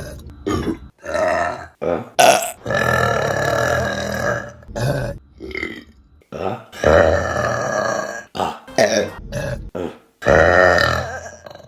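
Women burping one after another: about ten separate burps, some short and several long and drawn out, up to about two seconds each.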